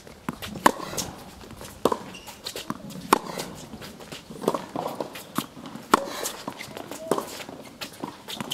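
Tennis rally on a hard court: sharp pops of the ball coming off racket strings and bouncing, a second or so apart, with the player's shoes scuffing and stepping between shots.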